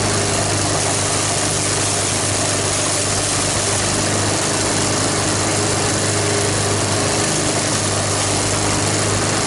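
Lawn mower's small four-stroke engine running at a steady speed with peanut oil in its crankcase in place of motor oil.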